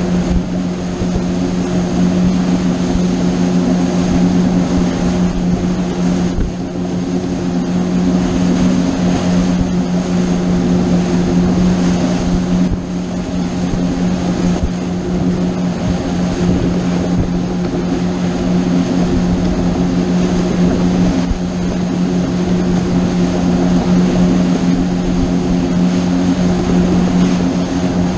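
Boat engine running at a steady speed under way, a constant drone over a rush of noise.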